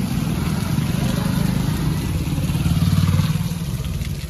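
Steady rain, with a motor vehicle's engine running close by, loudest about three seconds in.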